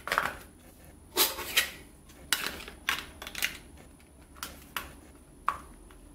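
Plastic clicks and knocks as a battery pack is pushed into the back compartment of an Eachine LCD5800D FPV monitor and the plastic battery cover is pressed on and snapped shut: a string of irregular sharp clicks, the loudest in a cluster about a second in.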